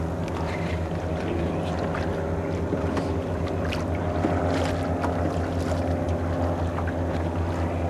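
A boat's motor running steadily at an even pitch, with wind and water noise around it.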